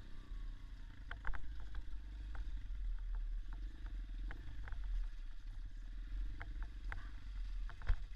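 Irbis dirt bike engine running at low revs, with scattered sharp knocks and rattles throughout.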